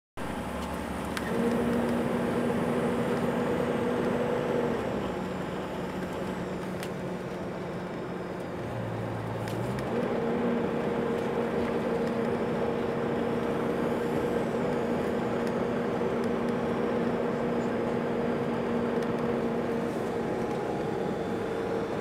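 Road noise and engine hum inside a moving vehicle. A steady hum drops in pitch about five seconds in and comes back up about ten seconds in, and it is louder in the first stretch and from ten seconds on.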